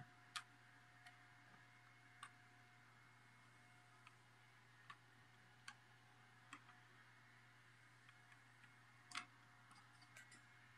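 Amazon parrot's beak working at a plastic Rubik's cube: faint, sharp clicks, roughly one every second or two, with a small cluster a little past nine seconds. Under them runs a faint steady low hum.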